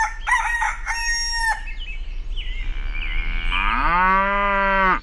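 Chicken sounds: a few short clucking calls in the first second and a half, then a rooster's long crow that rises, holds and ends abruptly.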